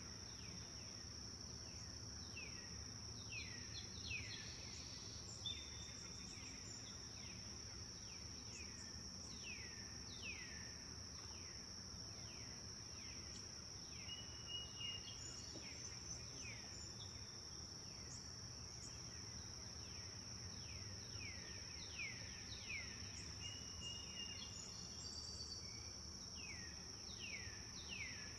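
Forest birds calling with many short chirps that sweep quickly downward in pitch, scattered throughout, with a few brief whistled notes. Beneath them runs a continuous high-pitched insect drone.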